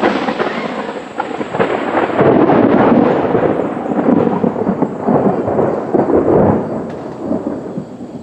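Thunder: a sudden loud clap that rolls on as a long rumble, easing off near the end.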